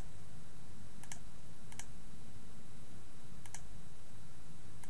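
A few computer mouse-button clicks, each a quick double tick of press and release, placing points of a polygon outline, over a steady low background hum.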